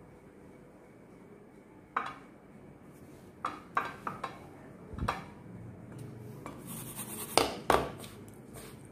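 Hands dipping potato balls in beaten egg and rolling them in bread crumbs in a steel bowl. From about two seconds in there are scattered sharp clinks and knocks on the steel bowl and plate, and near the end a brief scratchy rustle of crumbs with the loudest clinks.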